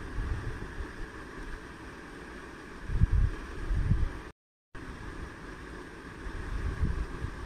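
Steady background hiss and low rumble, with brief deeper rumbling swells about three and four seconds in and again near the end. The sound cuts out completely for a split second a little after four seconds in.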